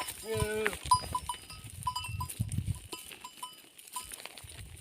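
A goat bleats once, briefly, just after the start, while goat bells clink on and off.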